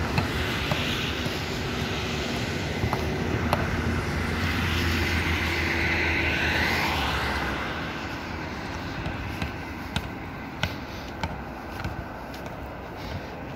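A motor vehicle's engine drones steadily, swells and then fades away after about seven seconds, leaving a quieter background with scattered light clicks and taps.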